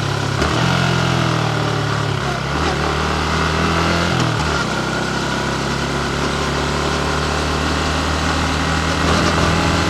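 Yamaha MT-15's 155 cc single-cylinder engine running on the road, its note shifting in pitch a few times in the first five seconds and then holding steady, over a steady rush of wind and road noise.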